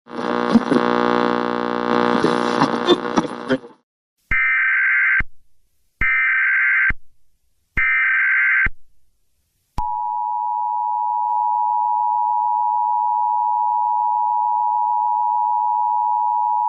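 Emergency Alert System tones. A loud buzzing sound lasts about three and a half seconds. Three short bursts of SAME header data follow, each about a second long. Then, about ten seconds in, the steady two-tone EAS attention signal starts and holds.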